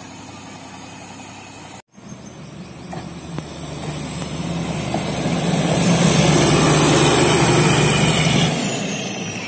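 A small self-propelled railway car running on the track, its engine drone and wheel noise swelling as it approaches, loudest a few seconds before the end, then fading as it passes. A steadier engine sound at the start cuts off abruptly about two seconds in.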